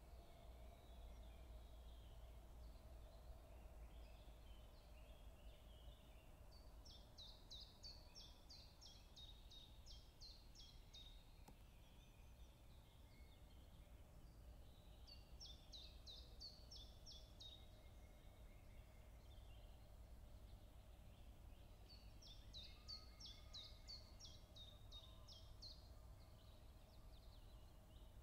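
A small songbird sings a quick high trill of a dozen or so falling notes three times, each lasting two to four seconds, over a faint, steady woodland background hum.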